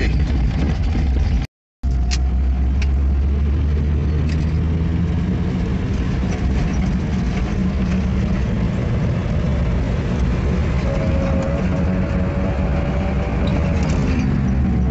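Car engine and road noise heard from inside the cabin on a test drive, the engine note rising as the car accelerates, with a brief break in the sound about a second and a half in. The engine has just had its fuel pump repaired and its fuel float adjusted, and the owners judge it to be running fine.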